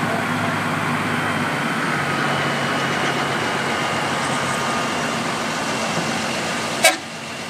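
Diesel engines of heavy cab-over trucks running steadily at low revs as they roll slowly past. A single sharp knock near the end.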